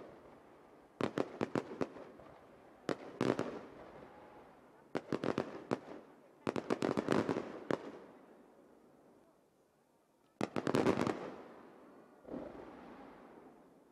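Aerial firework shells bursting in quick volleys of sharp bangs, each volley trailing off in echo. There are about six volleys with short pauses between them, and the last one near the end is softer.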